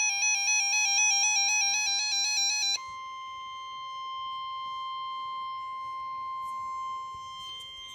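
Weather radio alerting: a loud, rapidly warbling electronic alarm plays over a steady tone. The warble cuts off about three seconds in, leaving the steady NOAA Weather Radio 1050 Hz warning alert tone, which signals that a warning message (here a tornado warning) is about to be read.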